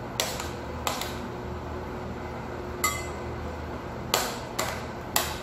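A metal spoon clinks against a serving tray as chopped salad vegetables are tossed: about six sharp clinks, one with a short metallic ring about three seconds in, over a steady low hum.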